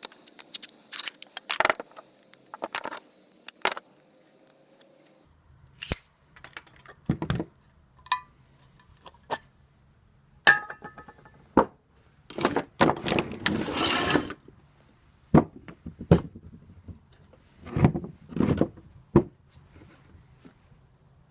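Irregular knocks and clinks of hard objects being handled, with a longer scraping rush of about two seconds a little past the middle and a faint low hum underneath.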